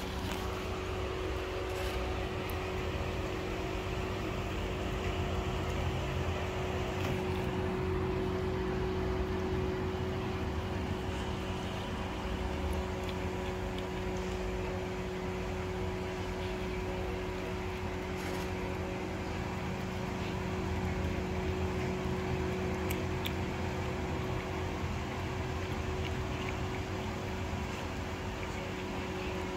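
A steady low machine hum, with faint soft clicks now and then from a cat eating wet food out of a ceramic bowl.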